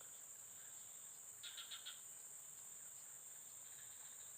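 Faint, steady high-pitched drone of crickets or other insects, with a brief run of about five quick chirps about a second and a half in.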